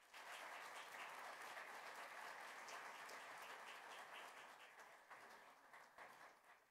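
Audience applauding, a dense patter of many hands clapping that thins out over the last couple of seconds and stops.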